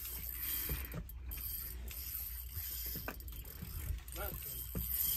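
Fishing reel being cranked under load while fighting a hooked fish on a bent rod, with scattered short clicks.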